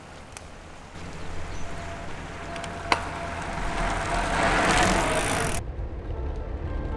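A road vehicle passing close by: a rushing hiss builds to a peak and then cuts off suddenly about five and a half seconds in, over a steady low rumble. There is one sharp click near three seconds in.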